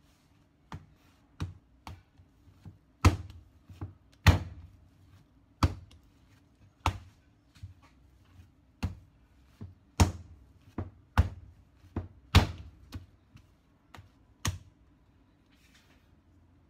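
Bread dough being kneaded by hand on a plastic cutting board: irregular thumps and taps, about one or two a second, as the dough is pushed and slapped against the board. Some thumps are much louder than others.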